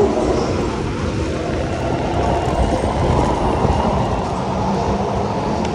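Go-kart driving on an indoor track, heard from the driver's seat: a steady, even rumble of the kart running at speed.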